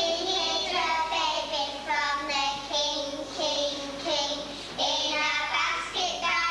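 A group of young children singing a song together in high voices, holding and changing notes.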